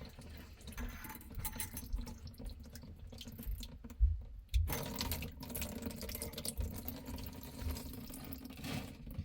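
Water trickling and dripping in a clogged sink drain as it is worked on, with small clicks of handling and two sharp knocks about four seconds in.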